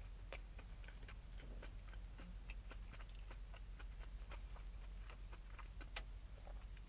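Faint close-up chewing of a crispy fried chicken sandwich: many small mouth clicks and crunches, with one sharper crunch about six seconds in, over a steady low hum.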